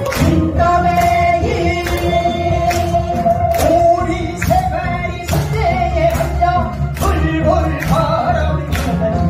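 A man and a woman singing a duet through microphones over loud backing music with a steady beat of about two strokes a second.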